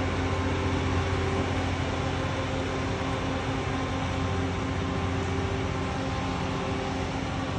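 Engine of a road-rail welding truck running steadily: an even, low drone with a steady hum above it.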